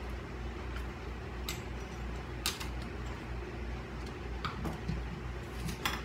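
Scattered light clicks and knocks of small objects being moved about on a desk, over a steady low hum.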